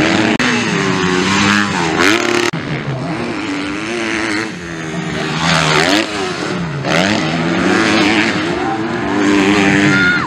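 Several 250cc motocross bikes racing past close by, their engines revving hard, dropping off and climbing again over and over as the riders work the throttle over the jumps.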